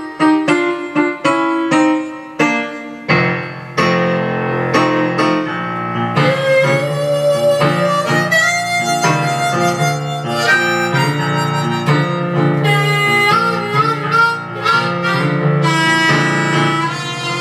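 Harmonica playing a melody over keyboard chords in a piano sound. The keyboard opens alone with chords struck about three times a second; a low sustained part comes in about three seconds in, and the harmonica joins a few seconds later.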